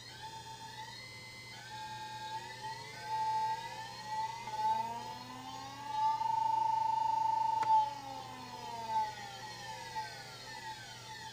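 PWM switching whine from a 1989 Danfoss VLT inverter drive with a Philips HEF4752 PWM controller and MOSFET outputs, its speed being ramped by hand: a set of whining tones that glide and jump in steps as the PWM carrier frequency is stepped to keep the output transistors cool. The tones are steadiest and loudest a little past the middle, a sharp click cuts in near the end of that stretch, and then they sweep down and fade.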